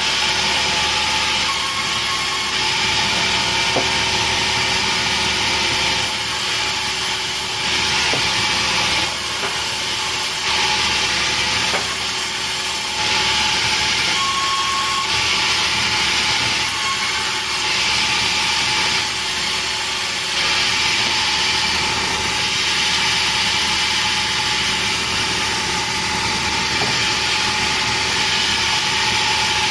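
Sawmill saw running steadily and cutting through petai wood, with the noise of the cut rising and falling every second or two over a constant machine hum.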